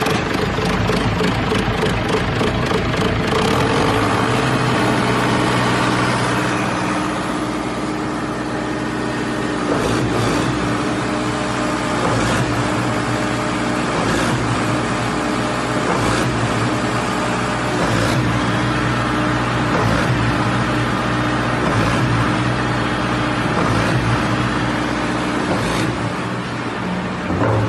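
Diesel concrete pump with a 4105 four-cylinder engine, running steadily under load while pumping. A sharp clunk comes about every two seconds as the pumping stroke changes over.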